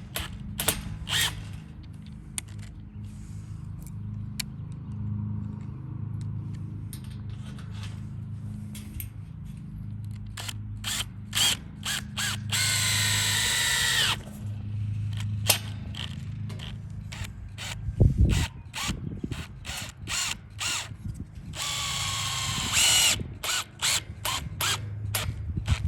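Cordless drill driving wood screws into a wooden base: two runs of the motor of about two seconds each, one mid-way and one near the end, its pitch sagging slightly under load. Many sharp clicks and knocks come in between, with a heavy thump about 18 seconds in, over a steady low hum.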